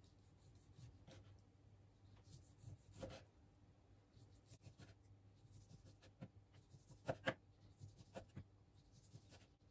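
Faint knife strokes slicing through cooked chicken breast, with soft taps of the blade on a plastic cutting board. The clearest tap comes about three seconds in, and two come close together about seven seconds in.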